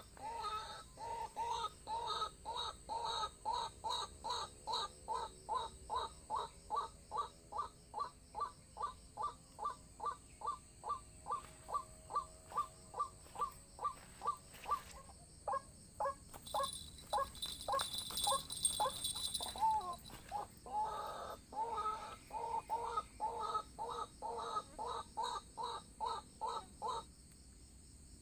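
White-breasted waterhen (ruak-ruak) calling: a long run of repeated notes, about three a second. Around the middle the notes become sparser and sharper, then the fast run picks up again and stops abruptly near the end.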